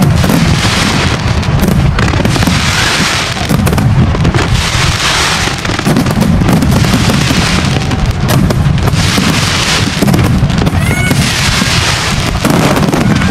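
Large New Year fireworks display going off nonstop: a dense barrage of booming bursts and crackle, loud throughout and swelling and easing every few seconds.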